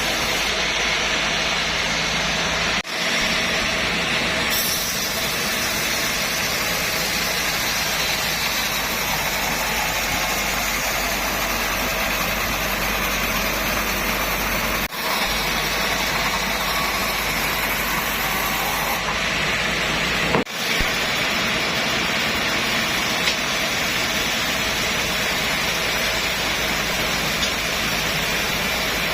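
Sawmill machinery running steadily: a continuous engine-like drone with a broad hiss over it, broken off for an instant three times.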